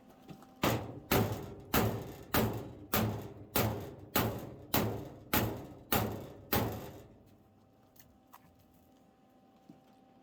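Steady series of about eleven hammer blows on the car's sheet-metal body, a little under two a second, each ringing briefly, stopping about two-thirds of the way through.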